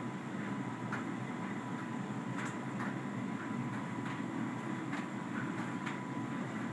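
Hotpoint Ultima S Line tumble dryer running with a steady low rumble as the drum turns. A faint steady whine sits over it, and there are occasional light knocks at uneven intervals.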